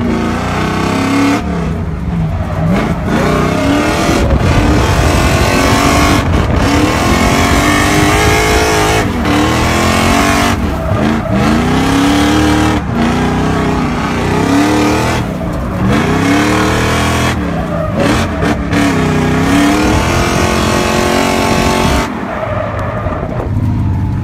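Drift car engine revving hard during a drift run, its pitch climbing and falling again and again, with several brief sudden cuts in the sound and tyres squealing, heard from inside the cabin.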